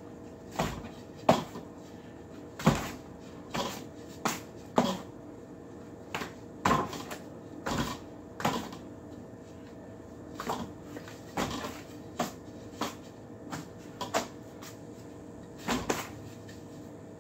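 Rattan ring knocking against the forearms and hands in short, irregular clacks, one or two a second, as it is swung through wing chun ring drills, over a faint steady hum.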